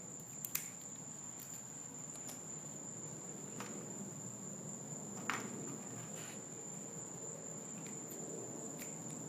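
Faint handling sounds: a few small clicks and ticks as pieces of double-sided tape are pressed onto a plastic headlight housing, over a steady high-pitched whine.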